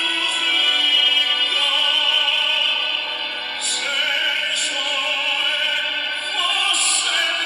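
A tenor singing an Italian canzone in operatic style, holding long notes.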